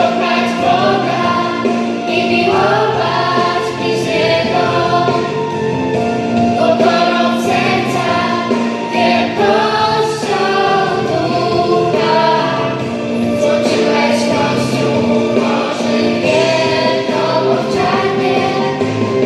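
A choir of girls and young women singing a religious song together into microphones.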